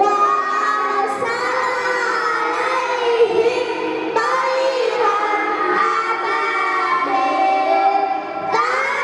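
A group of children singing together in long, melodic phrases, a new phrase starting about four seconds in and again near the end.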